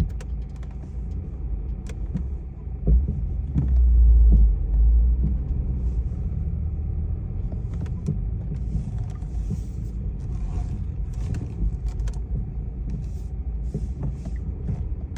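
BMW F20 on the move, a steady low rumble with scattered light clicks; about three seconds in a much louder low rumble swells for roughly two seconds. This is the front-axle noise the owner hears when braking or accelerating slightly in warm weather.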